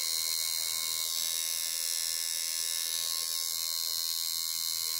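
Electric tattoo machine buzzing steadily as its needle works ink into skin.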